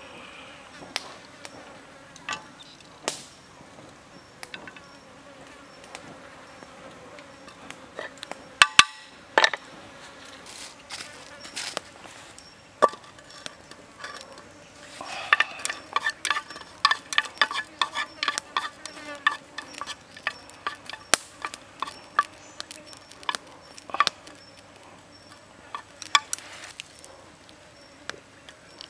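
Flies and other insects buzzing steadily, with scattered sharp clicks and crackles from a small wood cooking fire and from chopped chillies and shallots being dropped into a metal pan. The clicks come thickest in the second half, with a loud cluster about a third of the way in.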